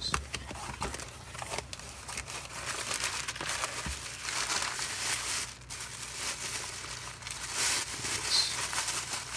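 Crumpled newspaper and tissue paper packing crinkling and rustling as it is pulled out of a cardboard box, with a sharp crack at the very start.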